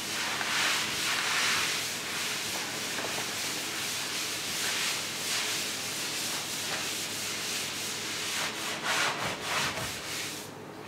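A tack rag wiped over the faired surface of a boat hull, a continuous run of swishing rubbing strokes lifting off dust before painting; the strokes come quicker and more separate near the end.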